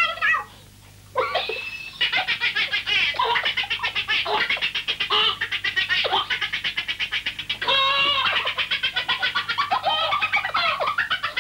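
A man in a fit of helpless, high-pitched laughter: rapid cackling pulses with a short break for breath about a second in.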